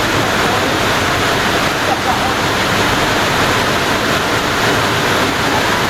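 Waterfall of about 150 feet: loud, steady rushing of falling water with no let-up.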